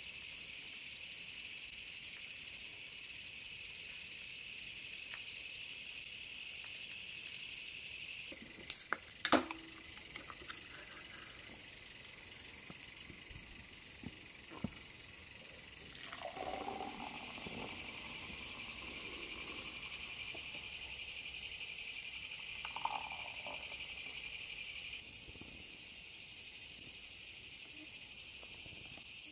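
Crickets and other night insects trilling steadily in a high-pitched chorus. A couple of sharp knocks come about nine seconds in.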